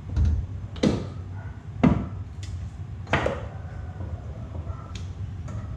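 Three heavy clunks in the first three seconds, the second the loudest, then a few lighter clicks, as a Honda CRX's freed rear trailing arm, with hub and brake rotor attached, is shifted and lowered toward the floor.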